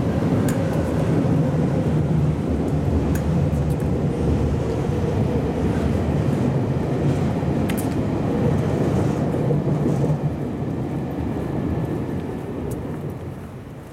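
Train running over the elevated Nankai railway viaduct overhead: a steady low rumble that fades away over the last few seconds.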